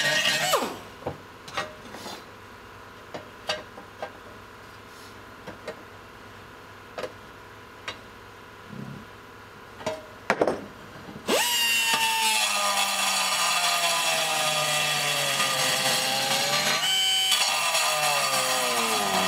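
Handheld grinder with a sanding disc, worked against a sheet-metal tank panel. It runs and spins down in the first second, then about ten seconds of scattered clicks and knocks as the tool is handled. It starts up again and runs to the end, its whine sagging slowly in pitch as it is pressed into the metal, with a brief dip near the end.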